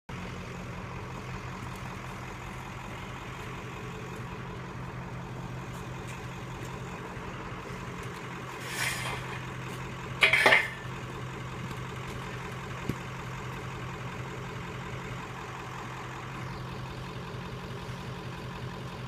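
A vehicle engine idling steadily. Two short, loud metallic clanks come a little before and at the middle while a hand-worked camper jack is operated.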